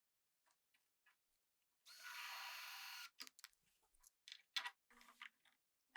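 A drill runs steadily for about a second, driving a fastener that mounts a caster bracket to the workbench, followed by a few light clicks and knocks.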